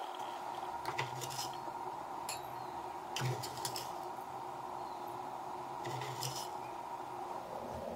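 Biscuit crumbs spooned into a drinking glass: a few short, soft scrapes and clinks of a spoon against the glass, over a faint steady hum.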